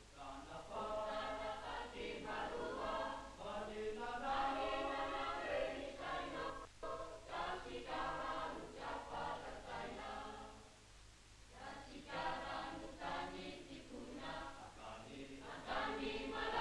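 A choir singing, with a brief lull about eleven seconds in.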